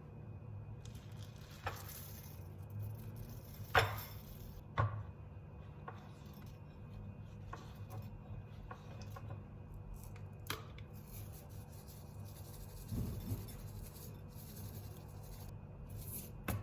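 Small handling noises: a few scattered light clicks and taps, the sharpest about four and five seconds in, and a brief rustle near the end, over a steady low hum.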